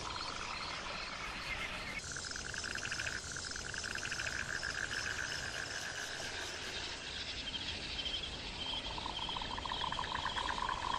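Nature ambience: a chorus of rapid, evenly pulsed trilling calls at several pitches overlapping over a steady hiss. A higher trill comes in about two seconds in, and a lower one takes over near the end.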